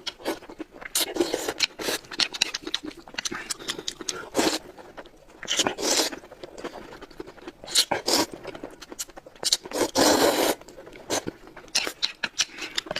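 Close-miked eating: irregular crunching, chewing clicks and scraping, with a few longer noisy bursts around five, six and ten seconds in.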